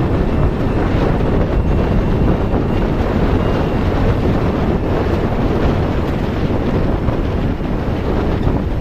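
Loud, steady wind rushing and buffeting over the microphone, strongest at the low end.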